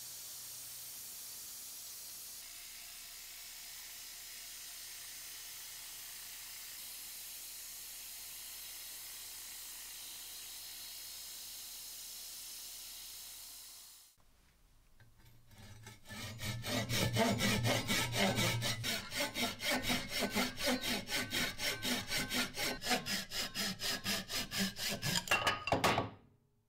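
Abrasive strip sanding an ash handle as it spins on a wood lathe: a steady hiss over a faint motor hum. After a short lull about 14 seconds in, a hand saw cuts through the ash in loud, rapid, even strokes, stopping just before the end.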